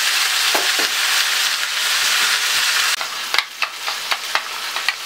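Rib-eye steaks sizzling loudly as they fry in a pan. About three seconds in the sizzle drops away, and a spoon stirs thick dressing in a ceramic bowl with a quick series of clicks and scrapes.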